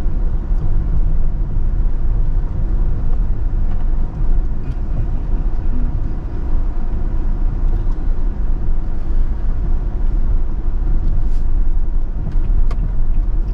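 Car driving slowly over a rough, potholed gravel road, heard from inside: a steady low rumble of engine and tyre noise, with a few light clicks in the second half.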